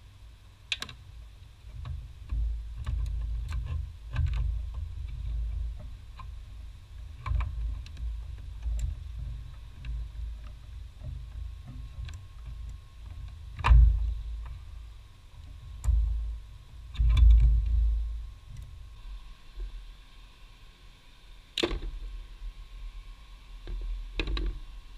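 Scattered clicks and knocks of hands working a plastic brake fluid reservoir and brake master cylinder, over a low rumble, with a few louder knocks in the second half.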